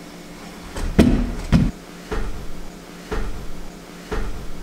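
About five short dull knocks, the two near the start loudest and the later ones softer and roughly a second apart, over a faint steady hum.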